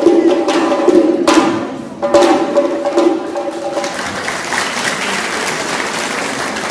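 Music with a percussion beat and sustained instrument notes that stops about four seconds in, giving way to steady applause from a crowd of people clapping.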